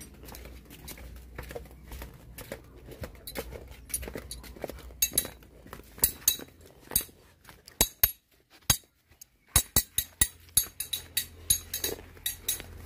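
Footsteps in flip-flops: a quick, irregular run of sharp slaps. They are faint at first and grow louder about five seconds in, with a brief pause near eight seconds, over a low rumble.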